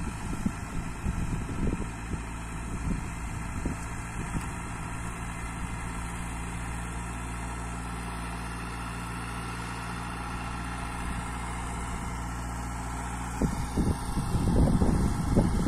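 Small farm tractor's engine running steadily under load as it pulls a plough through untilled garden soil. In the last two seconds an uneven low rumbling grows louder over the engine.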